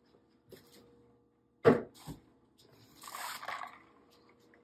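Plastic mixing bowls of water being handled: a sharp knock about a second and a half in, a softer knock just after, then water sloshing in a bowl as it is lifted, a little before the end.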